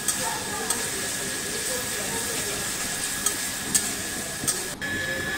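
Sliced onions sizzling steadily in hot oil in a karahi while being stirred with a metal spatula, which clicks and scrapes against the pan several times.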